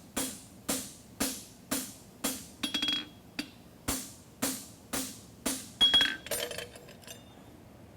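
Hammer blows on a steel horseshoe at the anvil, about two a second with a short ring on some strikes, re-establishing the shoe's fullered nail crease; the hammering stops about six and a half seconds in, followed by a few light clinks.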